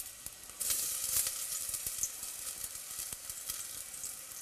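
Diced onion sizzling in hot oil in a pan, the sizzle flaring up about half a second in and then frying on steadily.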